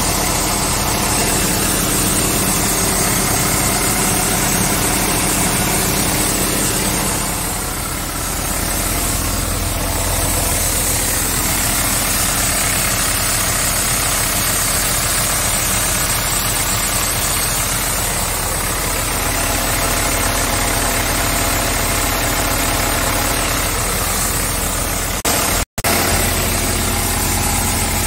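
Scania S tractor unit's Euro 6 diesel engine idling steadily, heard at the open engine bay under the tilted cab. The sound cuts out for an instant near the end.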